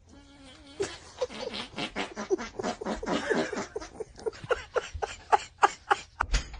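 A person laughing hard in rapid, repeated bursts, about three or four a second, the bursts growing sharper and more separate toward the end.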